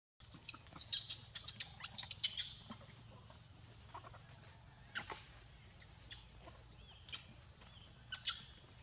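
High-pitched chirping animal calls: a quick run of many short chirps in the first couple of seconds, then scattered single chirps, with another pair near the end.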